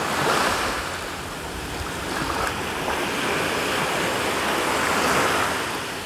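Black Sea waves washing onto the beach: a steady surf hiss that swells and eases twice.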